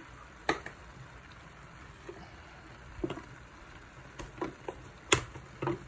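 Collard greens and sausage cooking in a stir-fry pan: a faint, steady low hiss. Several sharp clicks and knocks come through it, the loudest about five seconds in.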